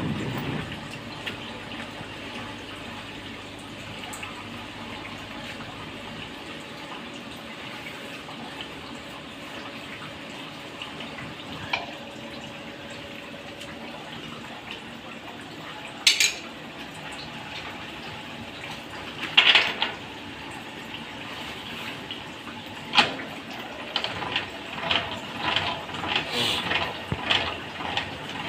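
Steady hiss of workshop machinery with a few scattered metallic clinks, which become frequent over the last few seconds, like metal parts being handled.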